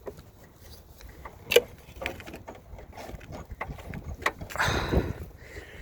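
Scattered light clicks and one sharp click about a second and a half in, then a brief rustling scrape near the end: handling noise from someone moving around and feeling over a van's body.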